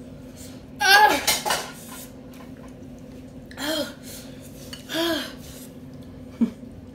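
Forks scraping and clinking against bowls as noodles are stirred and lifted, in a cluster about a second in and a sharp clink near the end. Two short hums from one of the eaters come in between.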